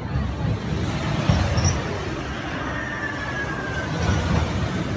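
Disk'O amusement ride's spinning disc running along its half-pipe track: a steady rumbling whoosh, with a faint, slowly falling high tone in the middle.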